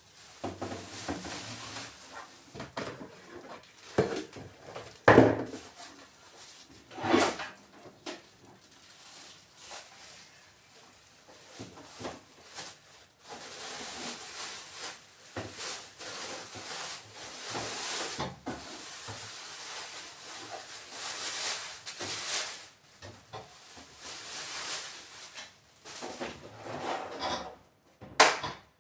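Kitchen work sounds: irregular knocks and clatter of dishes, utensils and cupboard or drawer handling, with a steady hiss running through the middle stretch.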